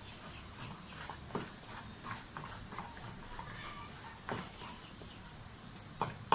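Thick gram-flour batter being mixed in a bowl: irregular soft taps and clicks of the mixing, with a sharper knock just after four seconds and another at the end.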